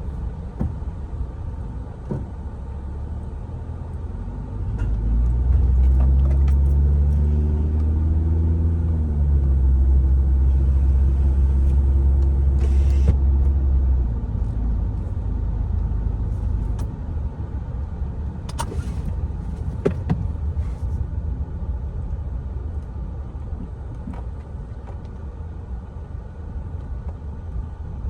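Car running, with a steady low rumble. About five seconds in the engine note grows louder and rises in pitch as it accelerates, holds for several seconds, then eases back to the steady rumble.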